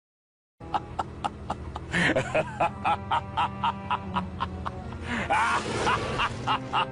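Meme sound-effect clip of music with a steady beat of sharp hits, about three or four a second, over a low steady tone, with a few short gliding vocal sounds; it starts about half a second in, after a brief silence.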